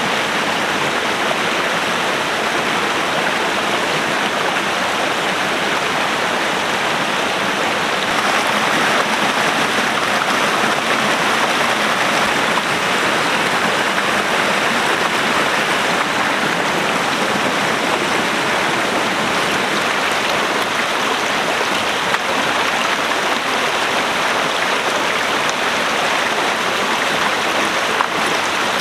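Small rocky stream rushing steadily over stones and a low cascade, a little louder from about eight seconds in.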